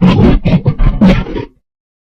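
Hanna-Barbera cartoon bear roar sound effect: a run of loud, choppy growling pulses, about four a second, that cuts off abruptly about a second and a half in.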